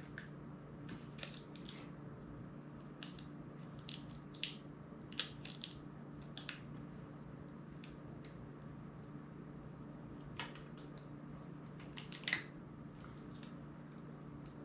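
Small sharp clicks and ticks of a flip phone's metal and plastic parts being handled and pried apart by hand, scattered irregularly with a few louder snaps, over a steady low hum.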